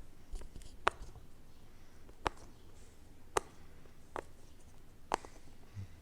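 Bubbles of a jumbo square silicone pop-it fidget toy being pressed one at a time, giving about five sharp pops, roughly one a second.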